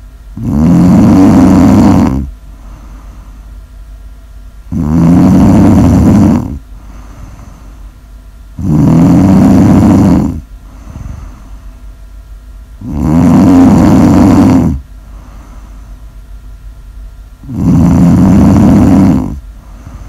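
A person snoring loudly in a steady rhythm: five long snores, each lasting about two seconds, coming roughly every four seconds.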